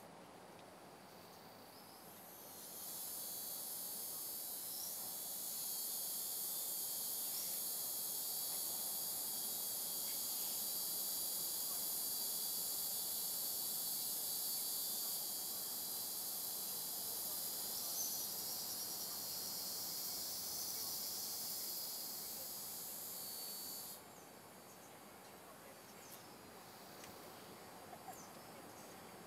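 High-pitched insect drone that swells up a few seconds in, holds steady, and cuts off abruptly near the end, leaving only faint insect chirps and a few small clicks.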